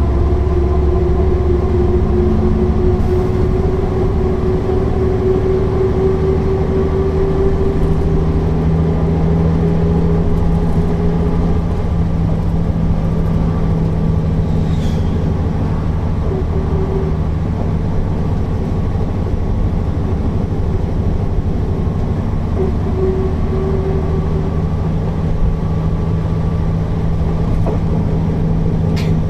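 Mercedes-Benz O408 bus's diesel engine running while the bus drives along, with a steady drone whose pitch rises slowly over the first ten seconds or so and then holds.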